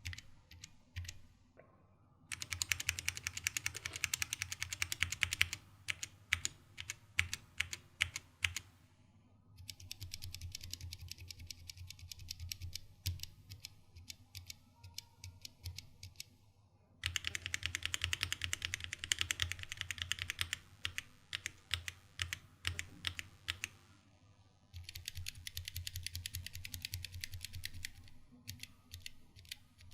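Fast typing on Gateron mechanical keyboard switches, a dense run of key clicks in stretches of several seconds each. Louder stretches alternate with quieter ones, as different switch types are tried in turn.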